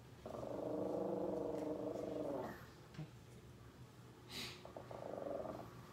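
Chihuahua growling: one steady growl of about two seconds, then a shorter, quieter growl near the end.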